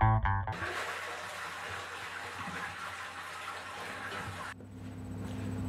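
Guitar and bass music ends with a last plucked note, then a steady rushing, hiss-like noise runs for about four seconds and cuts off suddenly, leaving a quiet low hum.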